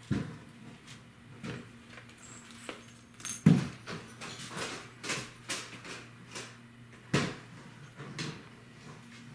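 Scattered light knocks and rustles, the sharpest about a third of the way in and again about three-quarters through.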